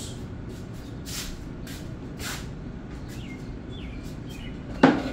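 Soft shuffling swishes of movement in a kitchen, then one sharp knock near the end from an upper wooden kitchen cabinet as it is opened or shut, over a steady low room hum.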